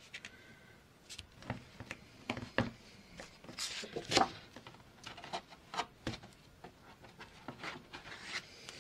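Paper and card rustling and sliding as a punched page is handled and fitted onto a ring-bound journal's metal rings, with scattered light taps and clicks.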